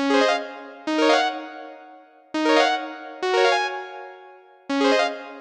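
Ringtone melody in an electric-piano-like keyboard sound: quick rising arpeggios that ring out and fade, coming in pairs, with the phrase repeating about every two and a half seconds.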